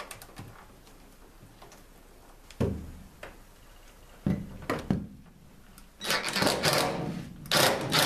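A few handling clicks and knocks, then from about six seconds in a Ridgid cordless impact driver runs in short bursts, rattling as it tightens the nut onto a battery cable's ring terminal and lock washer.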